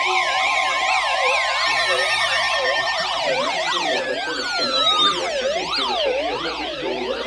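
Several sirens sounding at once, their pitches sweeping up and down about twice a second and overlapping. A few long tones slide slowly down in pitch across them.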